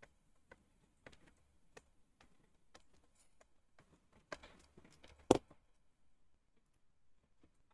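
Faint taps and clicks of a stylus on a tablet screen while handwriting is written, with one sharper click about five seconds in.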